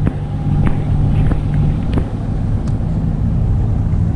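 Sailboat's inboard engine running steadily with a low hum as the boat motors through the lock chamber, with a few light ticks in the first three seconds.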